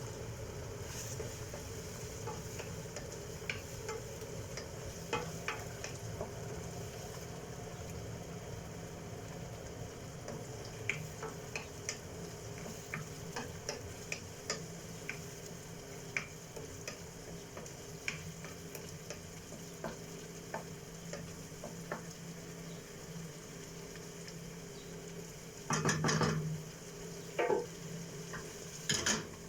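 Food sizzling in a frying pan while a utensil stirs it, with many light taps and scrapes against the pan and a couple of louder clatters near the end. A steady low hum runs underneath.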